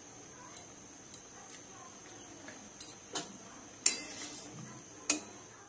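A spatula clinking against a steel kadai as a curry is stirred: several sharp taps, the loudest about four and five seconds in.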